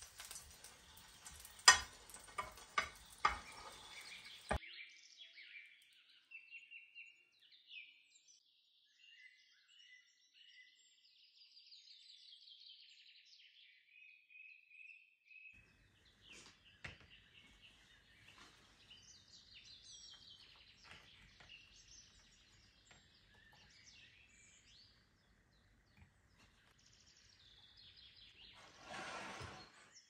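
Bread sizzling in a frying pan, with a few sharp taps and scrapes of a slotted spatula against the pan. After a cut about four seconds in, birds chirp and twitter off and on, with a few light clicks. Near the end comes a short rush of noise.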